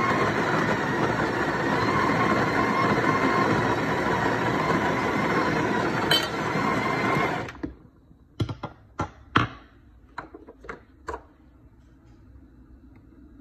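Breville espresso machine's built-in burr grinder running steadily as it grinds coffee into the portafilter, stopping abruptly about two-thirds of the way through. This is followed by a quick series of about eight sharp knocks as the filled portafilter is handled.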